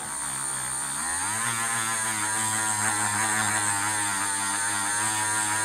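Dremel rotary tool running with a wool felt buffing wheel pressed against a metal dish, a steady motor whine. It rises in pitch about a second in, then holds steady.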